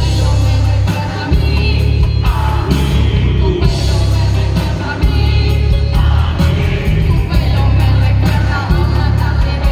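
Loud music with a heavy bass beat and singing, over a crowd yelling.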